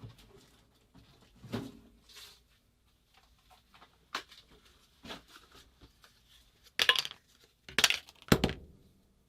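Metal parts and tools being handled on a workbench: scattered small clinks, taps and scrapes, with three louder rattling knocks near the end.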